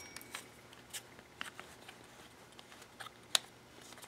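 A few light clicks and taps of small parts being handled, with one sharper click about three and a half seconds in, as a wing nut is fitted onto the bolt of a pair of homemade calipers.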